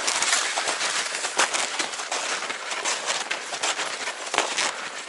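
Steady crunching, crackly hiss of a climber walking on snow on a glacier, footsteps and gear rustling close to the microphone, with irregular louder crunches.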